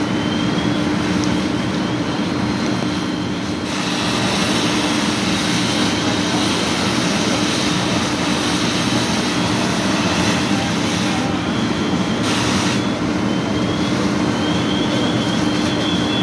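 A heavy engine running steadily, with a constant low hum under a loud rushing noise that grows a little about four seconds in. This is typical of a fire truck idling or running its pump at the scene.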